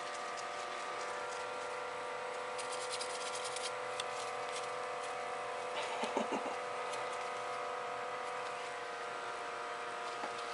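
A steady mechanical hum made of several pitched tones, with faint scattered ticks and a brief rustling burst about six seconds in.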